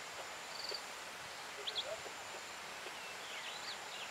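Bush ambience with bird calls: a short rapid trill less than a second in, a couple of sharp chirps a little later and more chirps near the end, over a steady hiss and a faint high insect whine.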